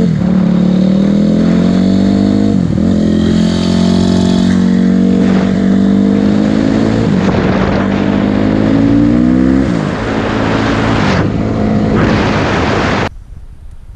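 2006 Honda CRF250R's single-cylinder four-stroke engine accelerating under load, its pitch climbing and then dropping at each gear change. It continues less evenly after about ten seconds, then cuts off suddenly near the end.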